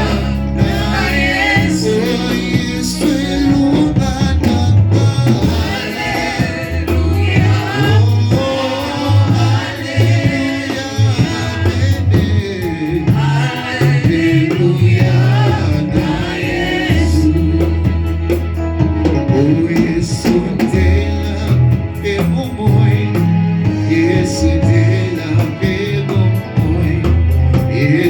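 Live gospel worship music: voices singing over a band with a heavy bass line.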